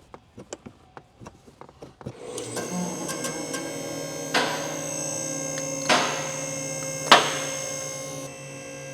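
Small metallic clicks and taps of hand tools, then a steady electrical hum starts about two seconds in. Three sharp metal knocks come over the hum, about a second and a half apart.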